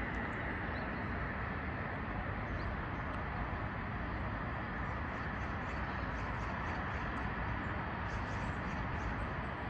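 Steady distant city traffic din, an even rumble and hiss with no single vehicle standing out. A few faint, short high chirps come and go above it.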